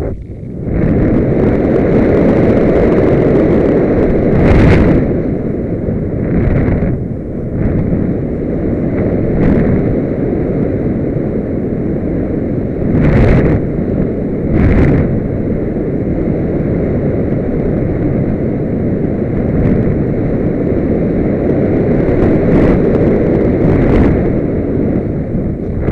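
Wind rushing over the microphone of an onboard camera on a Solius RC glider in flight: a loud, steady rush with a few short, louder gusts about five, thirteen and fifteen seconds in. No motor whine stands out above the airflow.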